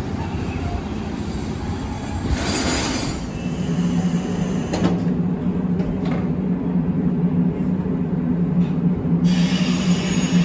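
Abukuma Express 8100 series electric train standing at the platform, its equipment humming steadily. A brief hiss comes about two seconds in, and a strong low hum sets in from about three and a half seconds.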